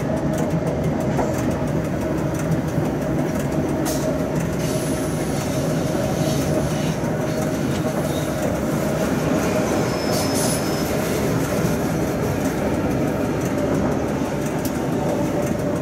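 Rhaetian Railway Ge 6/6 II electric locomotive running with a freight train, heard from the cab: a steady rumble of motors and wheels on the rails, with a steady hum and scattered clicks over the rail joints. A brief high wheel squeal comes about ten seconds in.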